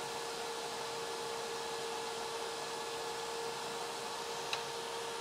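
12-volt electric cooling fan for a transmission cooler running steadily, a constant whirring rush with a steady hum tone, switched on by its temperature-controlled relay and blowing to cool the sensor back down. A faint click about four and a half seconds in.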